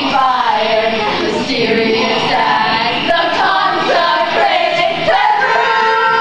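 A group of voices singing together, settling into held notes about five seconds in.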